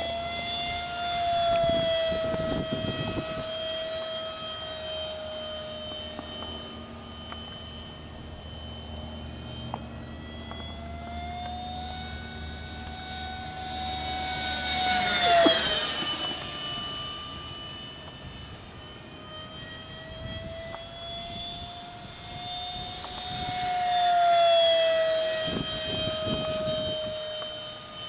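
Electric ducted fan of an F-5E model jet, a Wicked 4800 motor with the stock fan on a 3S lipo, whining steadily in flight. It makes two passes, about halfway through and again near the end. Each time the sound swells and the pitch drops as the jet goes by.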